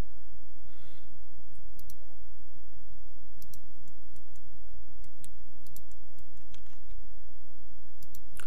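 Scattered clicks of a computer mouse and keyboard keys as Blender is worked, a few sharp clicks a couple of seconds apart, over a steady low hum.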